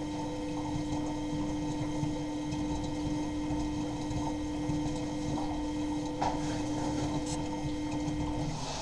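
Miele Novotronic W923 washing machine running in the early part of a cottons wash: a steady machine hum over a low churning noise, which stops shortly before the end.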